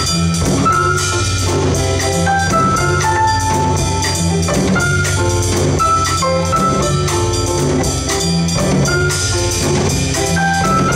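Live jazz piano trio playing: an upright piano carrying the melody and chords over a plucked double bass line and a Yamaha drum kit keeping time on the cymbals. The music is steady throughout.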